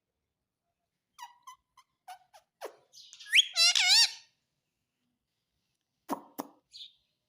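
Pet parrot making a few short chirps, then one loud wavering whistle. Two sharp clicks follow after a pause.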